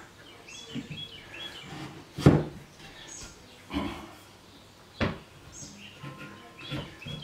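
Hardwood bunk-bed ladder parts knocking together as they are pushed onto their dowels: three sharp knocks about a second and a half apart, the first the loudest.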